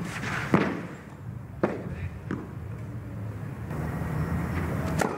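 Tennis ball knocks on a clay court: three separate sharp single hits in the first two and a half seconds, then the crack of the racket striking a serve near the end.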